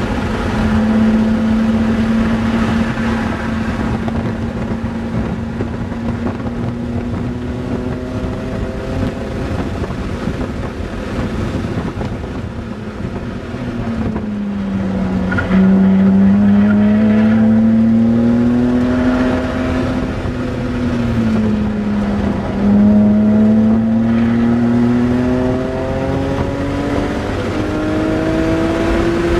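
Car engine heard from inside the cabin while the car is driven hard around a racetrack. The engine note holds steady at first, then about halfway through falls and climbs again twice as the car slows for corners and accelerates out, rising toward the end.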